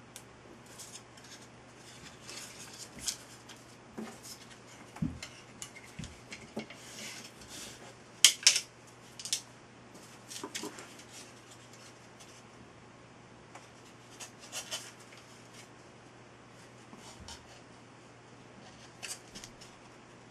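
Balsa wood boomerang blades and a toothpick being handled and fitted together on a paper-covered workbench: scattered light taps, clicks and paper rustles, the loudest a quick cluster of sharp clicks about eight seconds in.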